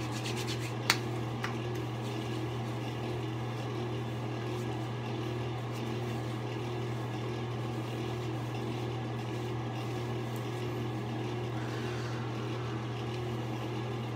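Steady low hum of a fan or air handler, with a few sharp slaps of hands on skin in the first second as aftershave is patted onto the face.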